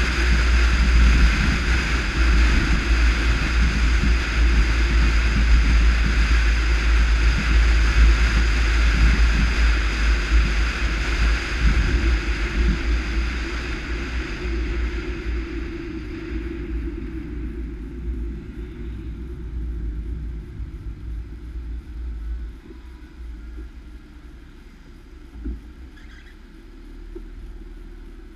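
Wind rushing over a camera mounted outside a moving Mercedes-Benz W124 coupé, mixed with tyre hiss on a wet road and a low rumble. The noise dies away steadily over the second half as the car slows to a stop.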